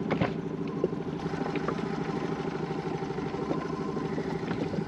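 An engine running steadily at idle, a constant low drone, with a sharp knock right at the start and a few light clicks on top.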